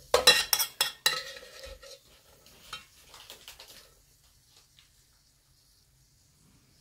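Metal spoon scraping and clinking against the inside of a stainless steel pot, scooping out thick boiled-down cola syrup. A quick run of clinks with brief ringing comes in the first second, and fainter scraping follows until about four seconds in.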